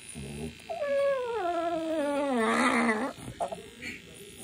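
Maltese-mix dog giving one long howling whine about a second in, sliding down in pitch over about two seconds, after a short low grumble. It is an aggrieved complaint at being held belly-up while its paw-pad fur is trimmed.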